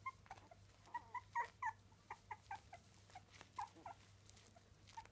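Three-week-old miniature dachshund puppies squeaking and whimpering: a string of short, high squeaks, several a second, thickest in the middle.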